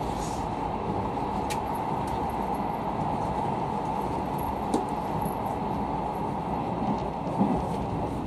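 Steady running noise of a locomotive-hauled sleeper coach, heard from inside the car as it rolls along the rails, with a few light ticks.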